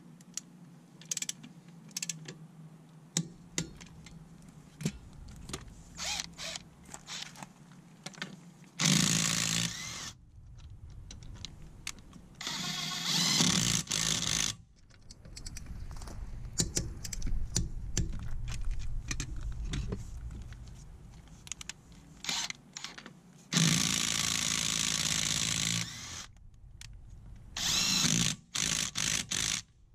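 Parkside PDSSA 20-Li A1 cordless impact driver hammering on a car's wheel bolts in about five bursts of one to two and a half seconds, with sharp clicks and handling noise between the bursts.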